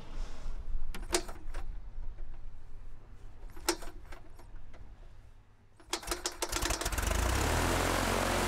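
Piper L-4 Cub's 65-horsepower engine being started by hand-swinging the propeller: a few sharp isolated pops in the first seconds, then about six seconds in it catches and settles into a steady idle.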